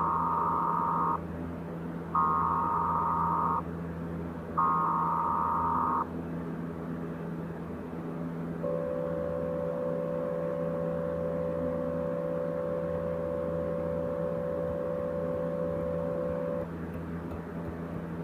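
Emergency Alert System tones: three short buzzy digital header bursts about a second apart, then a steady two-tone attention signal held for about eight seconds, over a constant low hum.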